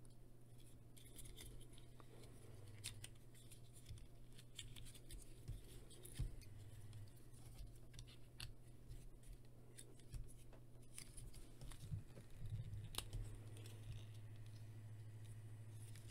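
Faint, scattered clicks and snaps of hard plastic as a Transformers Cyberverse Dinobot Slug action figure is worked by hand through its transformation, its joints tight. A faint low hum runs underneath.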